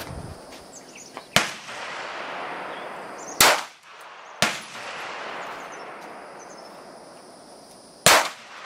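9mm semi-automatic pistol fired in single shots: three loud shots about one and a half, three and a half and eight seconds in, with a fainter shot about a second after the second.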